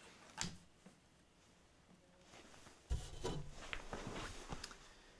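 Handling and movement noises from a person shifting in a seat: a sharp click just after the start, then a low thump about three seconds in followed by a couple of seconds of rustling and small knocks.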